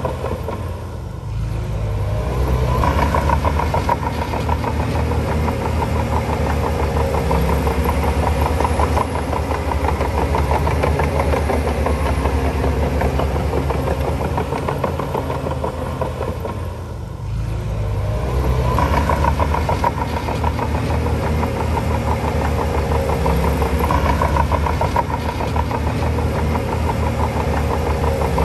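Diesel engine of a Shantui DH7C2 crawler bulldozer working under load while pushing soil, with a steady low rumble. It eases off twice, about a second in and again a little past the middle, then comes back up to full power each time.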